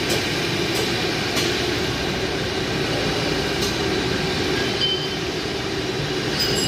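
Steady mechanical din of a car repair workshop, with a few sharp clicks about a second in and again near the middle.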